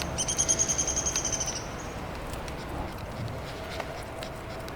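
A bird giving a high, rapid trill for about a second and a half at the start, over a low steady outdoor background.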